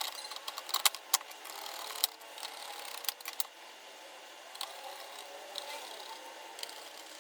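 Light clicks and taps of small hard parts being handled, several close together in the first three and a half seconds, then fewer and fainter.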